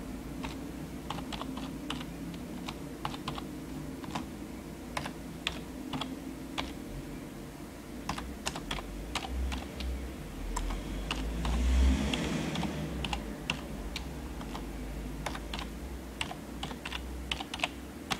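Typing: irregular keystroke taps, one to three a second, as a phrase is entered into an Android tablet letter by letter, over a steady low hum. A brief, louder rush of noise comes about two-thirds of the way through.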